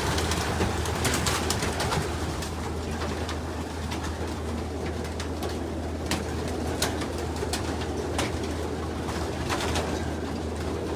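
A loft full of racing pigeons cooing, with scattered sharp clicks and rustles over a steady low hum.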